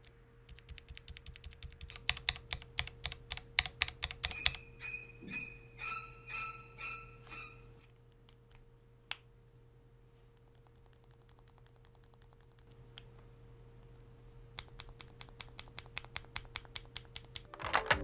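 Mechanical keyboard switches in a Geonworks Frog Mini being pressed in quick runs of clicky keystrokes. From about five seconds in, several presses carry a high metallic ping. It goes nearly quiet for a few seconds before a fast run of typing near the end.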